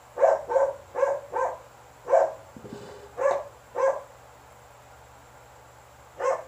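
A dog barking: a quick run of about seven sharp barks, a pause of about two seconds, then one more bark near the end.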